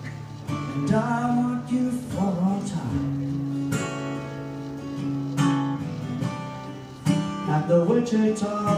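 Acoustic guitar strumming slow chords, each struck and left to ring, with a new strum every second or two in an instrumental passage of a song.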